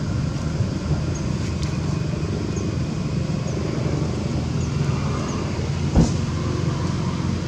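Steady low outdoor rumble with faint short high chirps every second or so, and a single sharp click about six seconds in.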